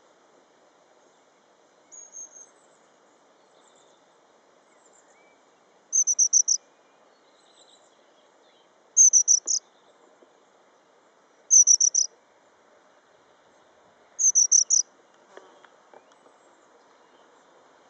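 A tit calling high and thin: four short bursts of four or five quick, falling notes, a few seconds apart, with a fainter short call just before them.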